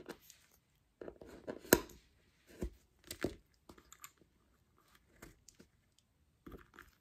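Lace bobbins knocking and clicking together as they are handled on the lace pillow: a scattering of small sharp clicks, the loudest a little under two seconds in.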